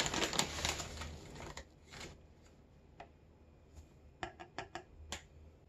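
Light handling clatter of a plastic measuring cup, then a quick run of five or six small sharp taps about four seconds in as a quarter cup of stevia is tipped out and tapped against the rim of a plastic mixing bowl.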